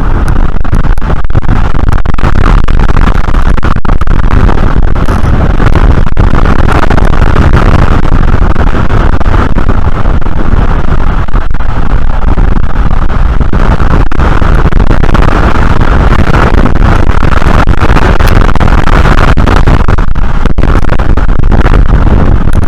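Strong wind blowing across the nest-cam microphone: a loud, unbroken rush with heavy low rumble.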